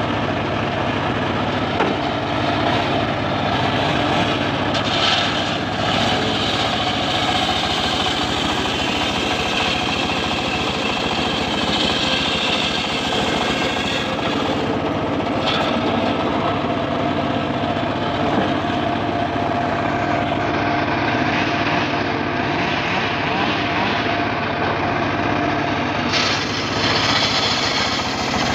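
Homemade engine-driven circular sawmill running steadily as a log is fed along its carriage into the blade. A higher tone swells now and then, about 5, 12 and 27 seconds in, as the blade cuts into the wood.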